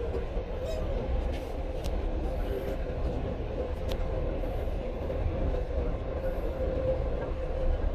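Dubai Metro train running at speed between stations, heard from inside the car: a steady low rumble with a constant hum over it and a few faint ticks.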